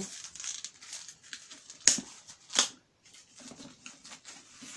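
Plastic food-storage containers being handled, rustling faintly, with two sharp plastic knocks about two seconds in, a little over half a second apart.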